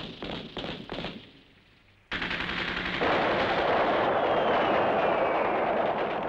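Battle sound effects: separate gunshots in the first second, then after a short lull a sudden dense, continuous roar of rapid gunfire and explosions that starts about two seconds in and grows louder about a second later.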